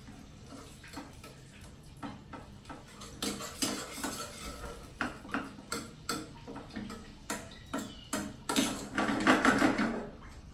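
A metal spoon scraping and clinking against a stainless steel frying pan, stirring red curry paste into a little water in irregular strokes, busiest about nine seconds in.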